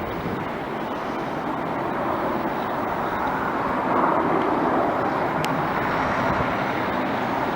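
Airliner engine noise across the airfield: a steady rushing sound that swells about four seconds in, as an aircraft on the runway powers up or passes.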